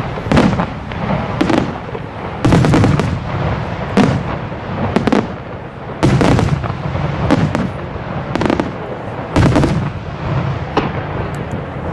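Aerial firework shells bursting in a rapid series, loud booms about once a second, each followed by a low rolling rumble.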